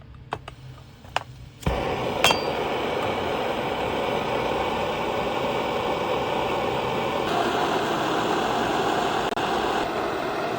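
Soviet PT-1 pressurised gasoline camping stove: a few light metal clinks, then about one and a half seconds in the burner catches with a low thump and burns with a steady rushing noise.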